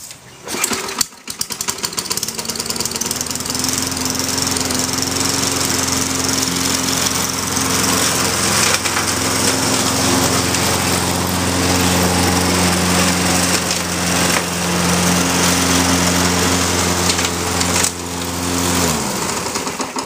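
Gas walk-behind lawnmower engine starting about a second in, then running steadily on a freshly replaced blade, which the owner says sounds right. It cuts off about a second before the end.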